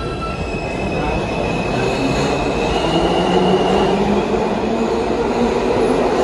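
R160 New York City Subway train pulling out of the station and gathering speed. Its motors whine, rising in pitch over the rumble of the wheels and cars, and the sound grows louder as it accelerates.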